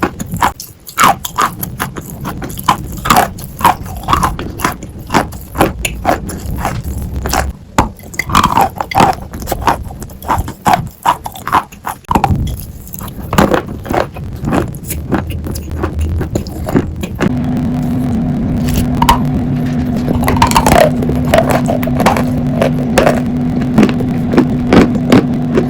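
Sawn chalk being bitten and chewed close to the microphone: irregular sharp crunches and scraping cracks. A steady low hum comes in about two-thirds of the way through and continues under the crunching.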